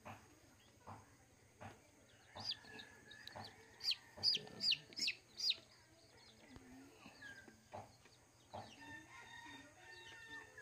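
Day-old Rhode Island Red chick peeping in short, high calls while held in the hand, with a quick run of about five loud peeps near the middle. A rooster crows in the background, once early on and again near the end.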